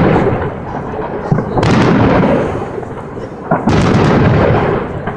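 Aerial firework shells bursting overhead: the end of one burst fading at the start, then two more sudden bangs, about one and a half seconds in and near four seconds in, each ringing on and fading over a second or so.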